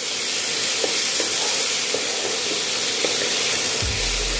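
Sliced onions and potatoes sizzling in mustard oil in a kadai over medium heat, stirred with a wooden spatula that knocks lightly against the pan a few times.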